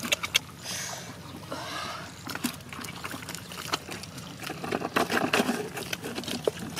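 Water splashing and trickling, with many short sharp splashes and knocks that come thickest about five seconds in.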